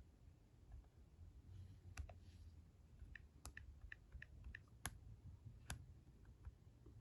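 Faint, sharp clicks over quiet room tone: four more distinct ones about two, three and a half, five and six seconds in, with lighter ticks between them.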